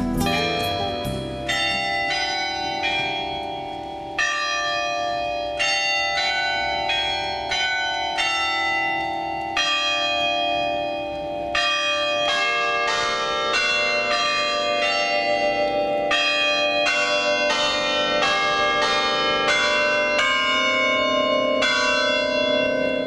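Bells ringing: a run of struck notes, about one or two a second, each ringing on under the next.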